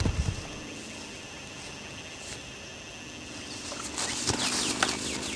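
The rumble of a bomb explosion dying away in the first half second, then quiet outdoor background. About four seconds in, running footsteps through grass, about two strides a second.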